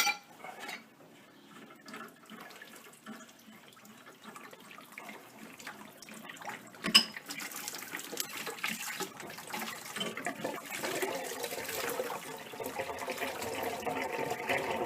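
Water pouring and splashing out of the house's supply pipe as the old pressure regulator valve is loosened off; the pipes are draining. The flow starts after a single sharp knock about seven seconds in and grows louder, with a few small clicks of tool work before it.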